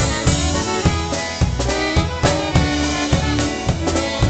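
Live polka band playing, with trumpet and saxophone over drums and a steady, regular bass beat.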